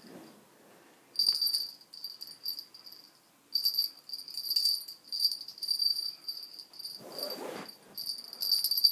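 A cat teaser wand toy rattling in quick, high-pitched bursts as it is waved over a kitten. A brief rustle comes about seven seconds in.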